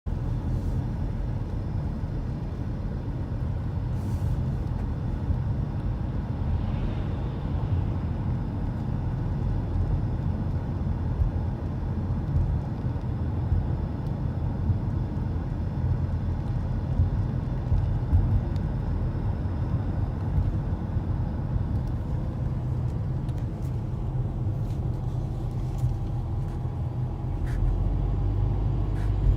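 Car driving on a highway, with a steady low rumble of engine and road noise.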